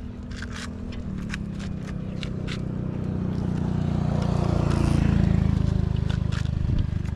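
A motor engine drones past, building to its loudest about five seconds in and then fading away. Light sharp clicks and taps are scattered through it.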